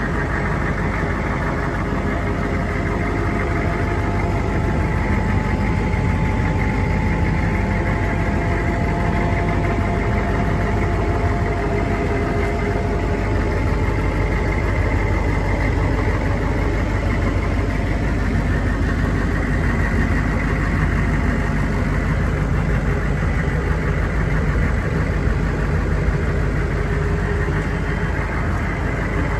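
An M1167 Humvee's turbodiesel V8 idling steadily, heard from inside the cab.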